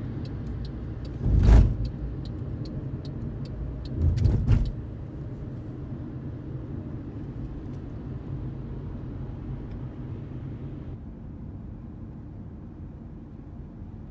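Steady low road and engine rumble heard from inside a moving car's cabin, with two louder swells of noise about a second and a half and about four seconds in. Faint ticking, about three a second, runs through the first three seconds.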